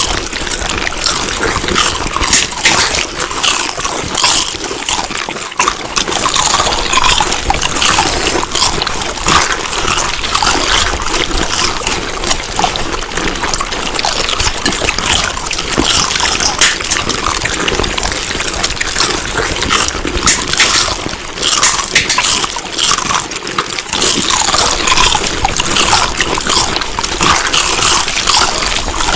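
Someone chewing food, close to the microphone: a dense, irregular run of small clicks and crackles that goes on throughout.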